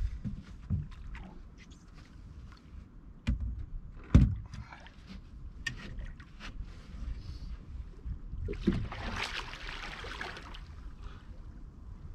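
Knocks and thumps on a metal boat, the loudest a heavy thump about four seconds in, then about two seconds of water splashing near the end as a hooked wels catfish thrashes at the boat's side while it is grabbed by hand.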